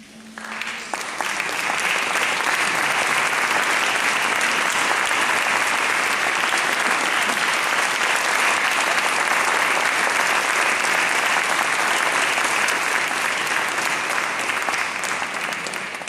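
Audience applauding, swelling over the first couple of seconds, then holding steady and dying down at the end.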